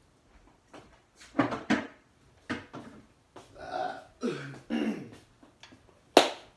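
A man coughing, clearing his throat and making strained wordless vocal noises in a string of short separate bursts, with the loudest and sharpest cough near the end. These are his reactions to the burn of extremely spicy fried chicken.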